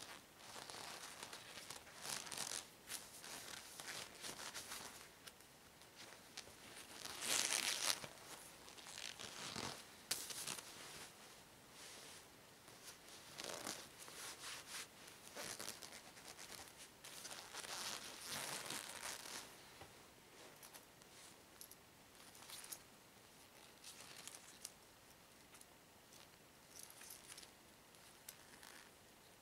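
Long green rubber gloves being pulled on and worked over the hands and arms, rubber rustling and stretching against rubber and cloth in irregular bursts. The loudest stretch is about seven seconds in, and it is quieter in the last third.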